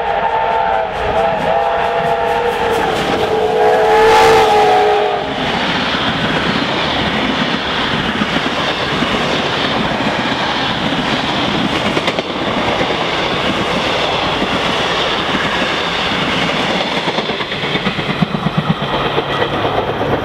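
Steam whistle of an R class Hudson steam locomotive sounding several tones at once, held for about five seconds as the train approaches. It then rushes past, and the carriages' wheels clatter steadily over the rails.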